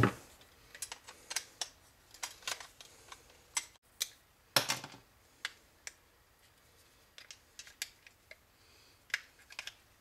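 Scattered light clicks and knocks of a dishwasher's plastic water pump and hand tools being handled on a wooden workbench as the pump is taken apart, with one louder knock a little before halfway.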